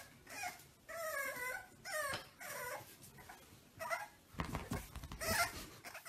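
A small puppy giving a run of short, high whines and yips, some sliding up and down in pitch, while it tugs at a plush toy. Near the end there is scuffling mixed in as it scrambles about.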